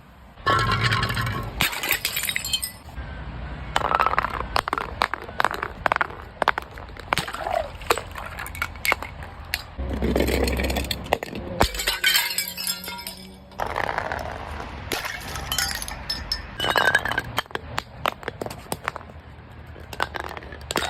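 Glass bottles being broken and crushed: many sharp cracks, clinks and crunches in a run of short bursts, each lasting a second or two before the next one starts.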